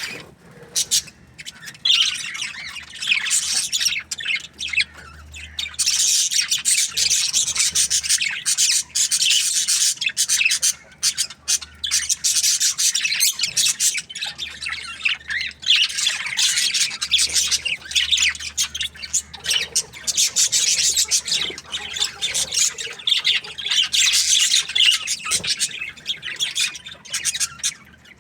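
A flock of budgerigars chattering and chirping, a dense run of high, scratchy warbles and squawks with a few brief lulls.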